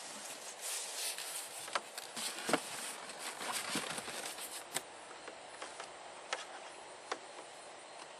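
Rustling handling noise with scattered light knocks and clicks as PVC pipes and a foam cooler are handled. The rustling dies down about five seconds in, leaving a steady hiss and a few isolated clicks.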